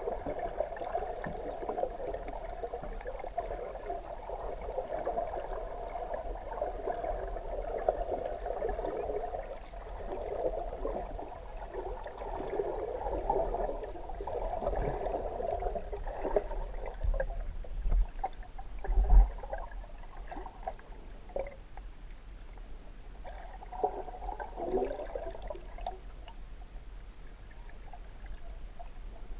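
Underwater water noise, a muffled gurgling and sloshing, that fades after the first half into scattered bubbly bursts, with one loud low thump about nineteen seconds in.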